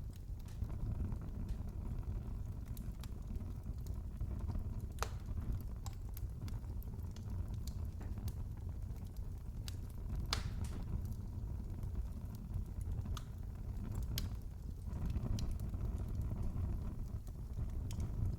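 Wood fire crackling in a fireplace: a steady low rumble of burning with scattered sharp pops, the loudest about ten seconds in.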